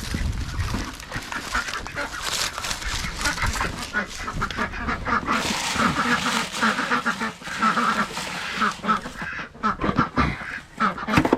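Domestic ducks quacking over and over, with a few sharp knocks near the end.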